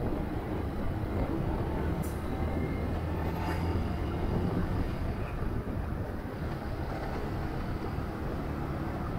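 Motorcycle riding in traffic at a steady speed: a continuous low engine and road rumble with wind noise. A brief sharp click about two seconds in.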